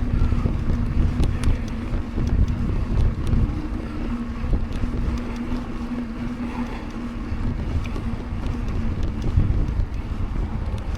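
Wind buffeting the microphone on a mountain bike ridden along a road, over a low rumble and a steady hum from the tyres rolling, with scattered light ticks.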